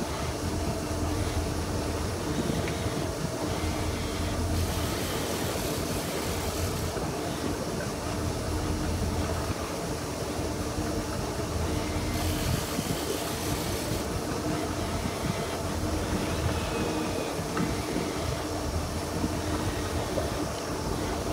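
Sportfishing boat's engine running steadily while trolling, a constant low drone with a steady hum. Two louder rushes of hiss come through, about five seconds in and again about twelve seconds in.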